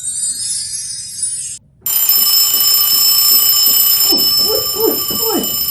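A light tinkling jingle, then about two seconds in an alarm clock starts ringing: a loud, steady, unbroken ring of several fixed tones.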